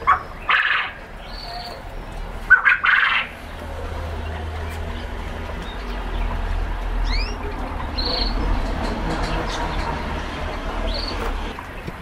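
Caged canaries chirping and calling in short scattered notes. There are two louder, harsher calls in the first few seconds and a couple of thin rising whistles around the middle, over a low steady background rumble.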